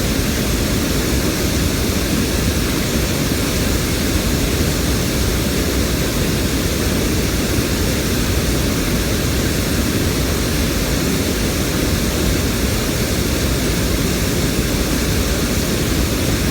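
River water flowing, a steady even noise that holds the same level throughout.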